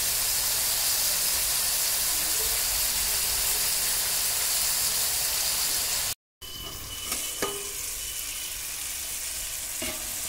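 Ridge gourd and potato pieces sizzling as they fry in oil in a steel wok, a steady hiss. About six seconds in it cuts out for a moment and comes back quieter, with a few light clicks.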